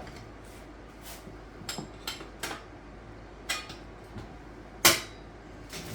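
Motion Pro 8-inch steel tire spoons clinking against a dirt bike rim as the tire bead is levered on in small bites: a handful of sharp metallic clicks, the loudest about five seconds in.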